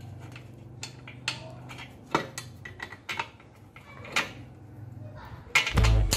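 Light metallic clinks and taps as a steel bolt is worked by hand into a steering-rack mounting bracket. Loud music comes in near the end.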